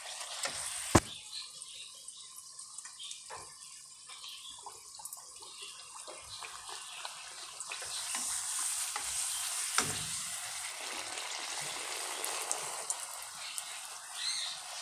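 Golgappa puris deep-frying in hot ghee in a kadai: a steady sizzle that grows stronger in the second half. Two sharp clicks, about a second in and near ten seconds, come from the slotted metal skimmer knocking against the pan.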